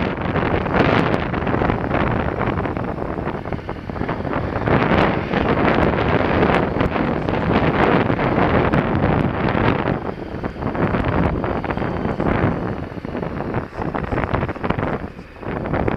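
Loud, gusting wind noise on the microphone of a big motorcycle riding a dirt trail, with the bike's running sound underneath.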